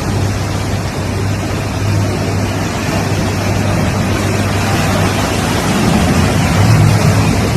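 Steady roar of hurricane wind and surf, with a low hum underneath that grows louder near the end.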